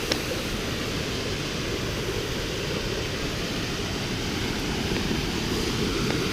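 Waterfall's steady rush of falling water, with a brief click just after the start.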